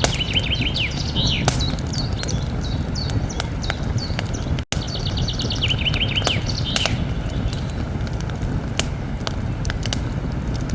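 Campfire crackling, with frequent sharp pops over a steady hiss of burning. A small songbird sings a rapid trill of quick repeated notes near the start and again about halfway through, and the sound cuts out for an instant just before the second song.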